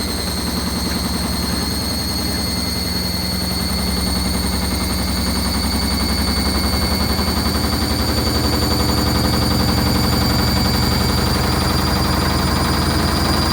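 Hoover HLW585DC washer dryer spinning a full load out of balance, the drum knocking fast and steadily against the cabinet in a rapid rattle, growing louder about four seconds in, over a high motor whine that climbs slightly. The machine is standing badly unlevel, so the heavy load cannot spin evenly.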